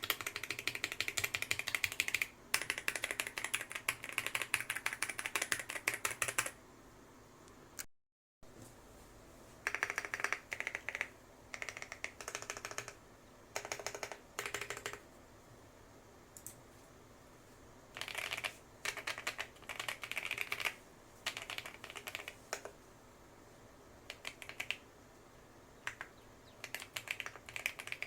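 Custom 65% mechanical keyboard with PBT Cherry-profile keycaps being typed on: fast continuous typing at first, then after a brief cut, short runs of keystrokes with pauses between them.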